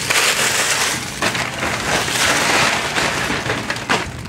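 Plastic packaging crinkling and rustling in dense, irregular crackles as it is handled and opened, with a sharper crack near the end.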